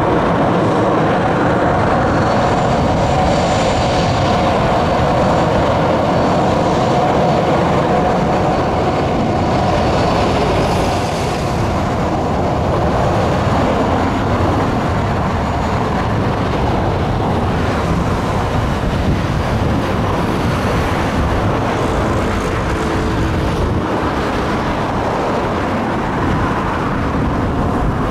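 Jet engines of a Boeing 737-800, CFM56 turbofans, running steadily as the airliner taxis past, with a thin high whine over a steady rush. The sound is loud and eases a little about halfway through as the aircraft turns away.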